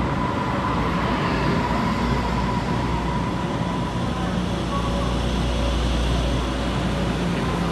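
Taiwan Railway EMU500 electric commuter train pulling out along the platform, its wheels and running gear making a steady rumble as the cars pass.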